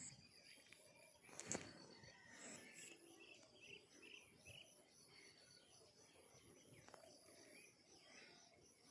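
Faint outdoor ambience: insects trilling steadily at a high pitch, with scattered short bird chirps. A single sharp click sounds about a second and a half in.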